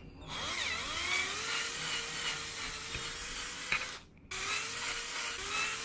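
Cordless drill with a 3 mm (M3) bit boring out a tight hole in a 3D-printed plastic plate. The motor whine rises as it spins up and then runs steadily. About four seconds in it stops briefly, then spins up again.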